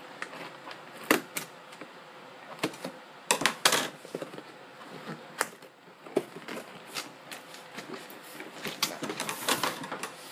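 Scissors cutting packing tape on a cardboard shipping box, then the box flaps being pulled open: irregular snips, clicks and crackles, with a rustle and scrape of cardboard and paper near the end.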